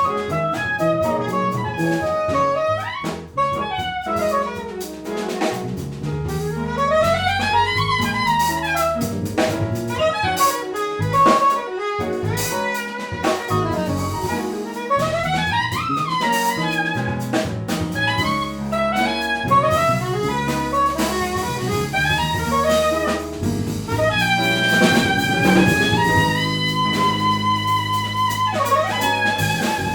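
Live jazz quartet of tenor-range saxophone, piano, double bass and drum kit playing. The saxophone runs quickly up and down over the bass and cymbals, then holds a few long notes near the end.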